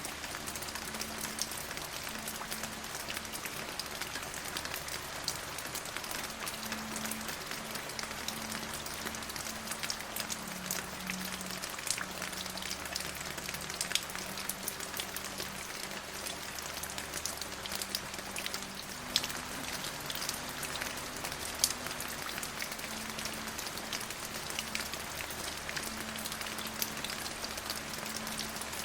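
Steady rain falling, with many distinct drops ticking sharply through the hiss. A faint low tone that shifts in pitch every few seconds runs underneath.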